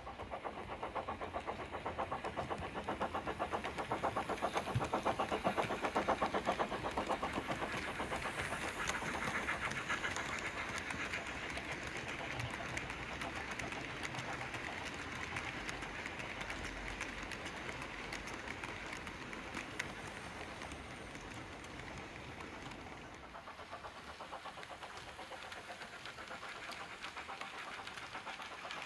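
Model coal train running on model railway track: a rapid, even clicking clatter of the wagons' metal wheels over the rail joints. It grows louder as the train comes closest, a few seconds in, then eases off.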